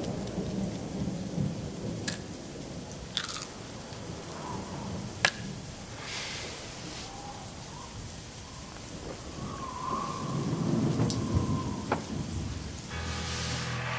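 Rain falling with thunder rumbling, broken by a few sharp clicks. Music starts near the end.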